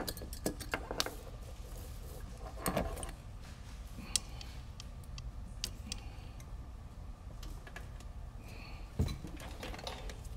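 Small hand tools being picked up and put down on a silicone work mat during clean-up: scattered light clicks and clinks, a few sharper knocks among them, over a low steady hum.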